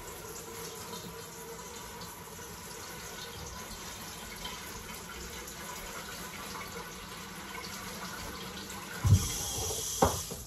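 Kitchen tap water running steadily into a stainless-steel sink while dishes are washed, with a sharp knock about nine seconds in and a lighter click a second later as things are handled in the sink.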